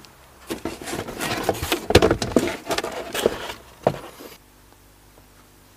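Cardboard box being opened by hand: flaps and sides rustling and scraping in a run of rough crackles and knocks that stops about four seconds in.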